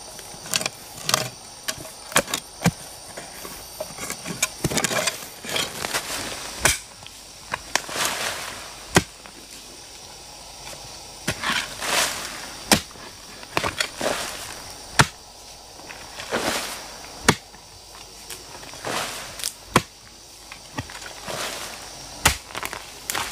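Hoe blade chopping into root-filled soil, with dull strikes at an irregular pace of about one a second and the scrape and crumble of loosened earth between them.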